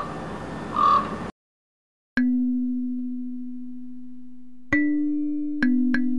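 A rushing noise with two short higher tones in it for about a second, then a moment of silence, then four struck bell-like tones, each ringing on with a long slow decay; the last two come in quick succession near the end.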